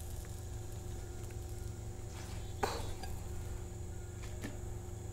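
A faint clink of kitchenware as pancakes are plated, one sharper click about two and a half seconds in, over a steady low hum.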